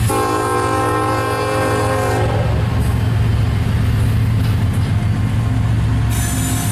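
Horn of a Union Pacific freight train's locomotive sounding one chord for about two seconds, then cutting off. Under it is the steady low rumble of the diesel locomotives and double-stack container cars rolling past. A high wheel squeal comes in near the end.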